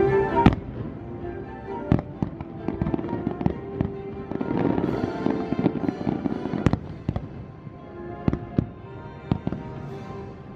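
Fireworks going off, heard as about ten separate bangs, the loudest about half a second in, with a stretch of crackling around the middle. Music plays underneath.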